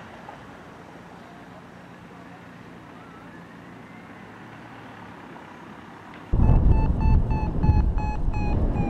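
Faint steady background noise, then about six seconds in loud wind buffeting on the microphone of a flying paraglider, with a paragliding variometer beeping rapidly at a steady pitch that dips slightly near the end.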